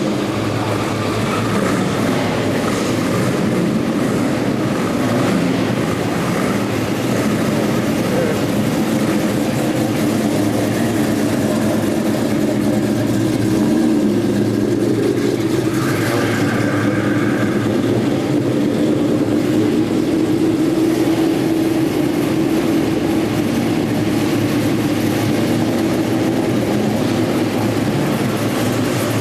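Several car engines running at low speed as cars drive slowly out of a large indoor hall, a steady rumble that echoes in the hall.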